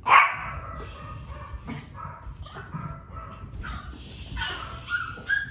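Small dogs meeting for the first time: one loud bark at the start, then a string of short high-pitched whines and yips.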